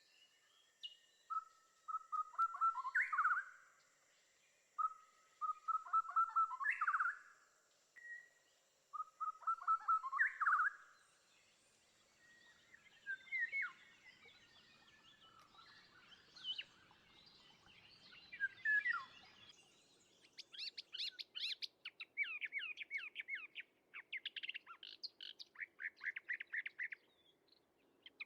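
Birds singing: three song phrases of quick notes, each ending in a rising flourish, about four seconds apart, then near the end a fast run of higher chirps.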